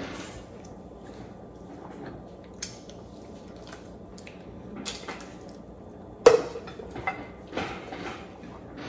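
Close-up eating sounds of boiled crawfish being peeled by hand: shells cracking and squishing, with wet sucking mouth sounds. A single sharp knock on the tabletop comes about six seconds in.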